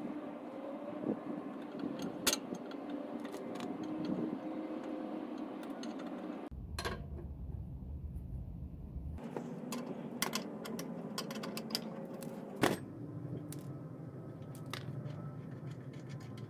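Scattered metallic clicks and clinks of pliers and a wrench working the rusty hardware on a 1937 Plymouth's front drum-brake backing plate, over a steady hum.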